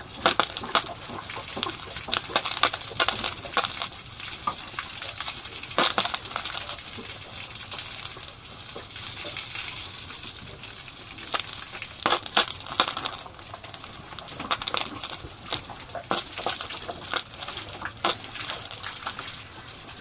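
Pigs eating feed: a steady run of irregular crunching and sharp clicking.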